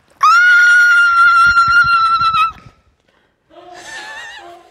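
A woman's long, high-pitched squeal held steady for about two seconds, then laughter near the end.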